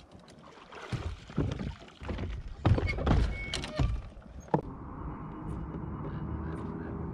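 Hollow knocks and thumps in a fishing boat, then from about four and a half seconds in a boat motor starts and runs steadily.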